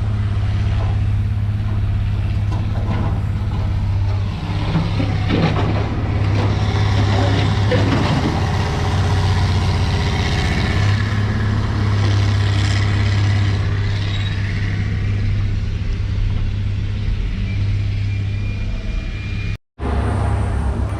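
Pickup truck engine running steadily while driving, with road noise; the sound cuts out for an instant near the end.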